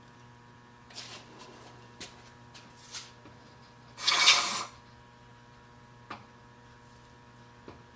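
Steel pliers clicking and scraping against a firebrick as a freshly silver-soldered tube is lifted off. About four seconds in comes one loud, brief rush of noise, with a couple of faint clicks later, over a steady electrical hum.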